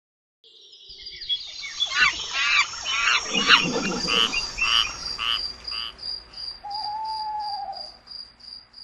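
Night-time nature sounds: frogs calling in a run of repeated chirps and low croaks over a high insect trill, which settles into an even pulse of about three beats a second.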